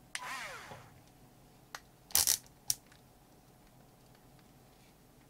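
Cordless drill-driver's motor whirring briefly and winding down with a falling whine, followed by a couple of sharp clicks and a short metallic clatter of small hardware.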